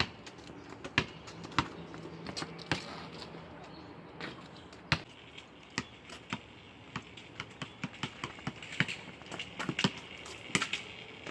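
A basketball dribbled on a concrete driveway: sharp single bounces at irregular intervals, coming quicker and closer together in the second half.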